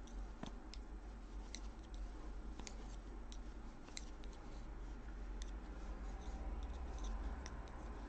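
Knitting needles clicking and tapping against each other at an uneven pace while knit stitches are worked, over a low steady hum.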